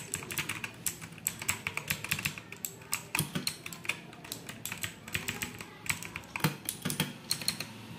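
Typing on a Portronics Hydra 10 mechanical keyboard with blue switches: a quick, uneven run of sharp keystroke clicks.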